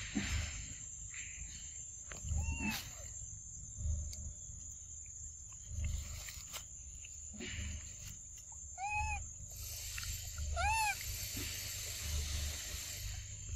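Infant macaque giving short, arched squeaky coo calls that rise and fall in pitch, about two and a half seconds in, then twice more near nine and eleven seconds. Under them are soft low thumps and a steady high-pitched whine.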